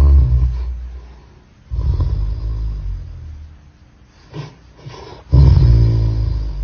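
Angry dog's barks and growls slowed down, so they come out as deep, drawn-out rumbles. One fades out within the first second, another starts about two seconds in, two short ones come at about four and a half seconds, and the loudest, longest one starts near the end.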